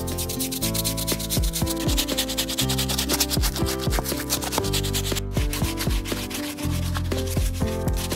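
Stiff brush scrubbing the soapy, hairy hide of a cow's leg in rapid back-and-forth strokes, several a second, with a short pause about five seconds in. Background music plays underneath.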